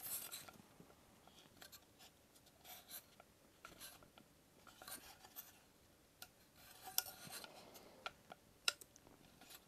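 Faint light clicks and scraping of thin wooden pieces being pushed and slotted together by hand: a wooden stand for a tarot 'card of the day' being assembled. A few sharper clicks come in the last few seconds.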